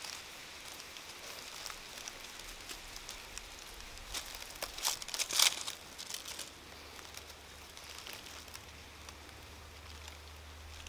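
Dry leaf litter crackling and rustling as a person shifts and handles it, with a brief cluster of louder crackles about halfway through.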